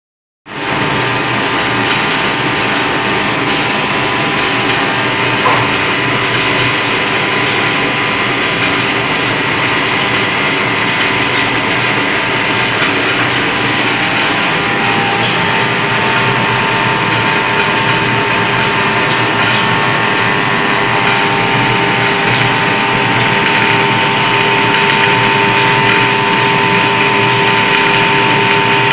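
Camphor tablet packaging machine running steadily: a continuous mechanical whirr and clatter with a few steady tones through it.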